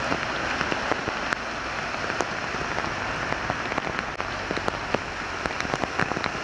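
Heavy rain falling on a hard surface: a steady hiss with many separate drops ticking and splashing through it.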